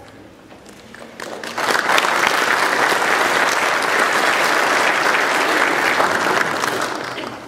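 Church congregation applauding after a choir's song. The clapping swells about a second and a half in, holds steady, and dies away near the end.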